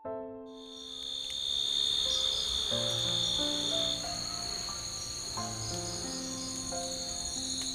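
Crickets and other night insects chirring steadily in several high, overlapping tones; the lowest of these stops about four seconds in. Soft piano music plays underneath.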